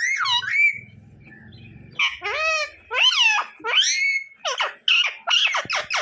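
Male rose-ringed (Indian ringneck) parakeet giving a run of high, squeaky chattering calls that swoop up and down in pitch, with a pause of about a second near the start.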